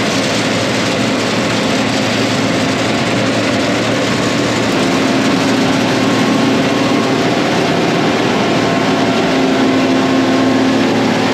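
John Deere cotton picker running steadily while harvesting cotton: a loud, even engine and machinery drone with a low hum.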